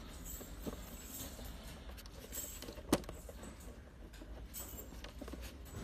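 Light scratching and ticking of steel picture-hanging wire and a small metal frame hanger being handled and fitted, with one sharp click about three seconds in.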